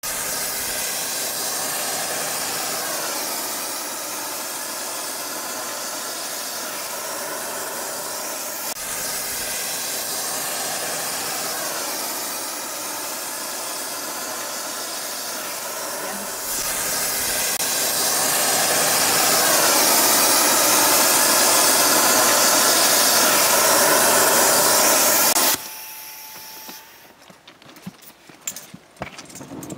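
Gas preheating burner hissing steadily as it heats the rail ends inside a thermite-weld mould, getting a little louder partway through and shutting off abruptly near the end. A few light metallic knocks follow.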